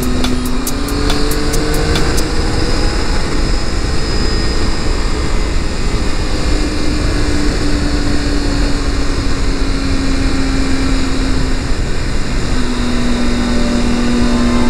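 Triumph Tiger 800's three-cylinder engine pulling along the road on the move, its note stepping up and gliding in pitch with the throttle. A steady rush of wind and road noise runs under it.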